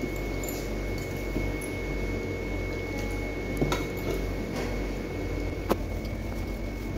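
A hand squeezing and rubbing oiled maida flour in a steel bowl while water is worked in for dough, with soft squishing. Two sharp clicks come about halfway through and near the end, over a steady background hum.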